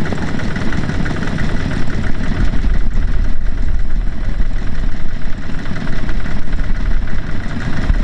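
Two-wheel walking tractor's single-cylinder diesel engine idling steadily, a rapid low chugging.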